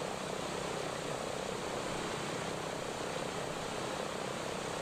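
A B-17's Wright Cyclone radial engine, the only one running so far, idling steadily, heard on old camcorder audio.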